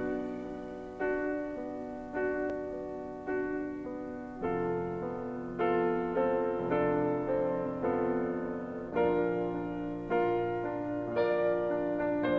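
Slow, gentle solo piano music: a chord struck about once a second and left to fade, with deeper bass notes joining about four and a half seconds in.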